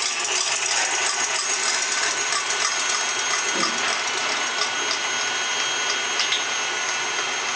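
KitchenAid Artisan stand mixer running at a steady speed, its motor and gears whirring with a thin steady whine as the wire whisk beats in the stainless steel bowl.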